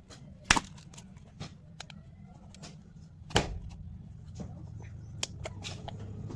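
Candy packaging being handled: scattered clicks and taps, with two louder sharp knocks about half a second in and a little past three seconds, over a low steady hum.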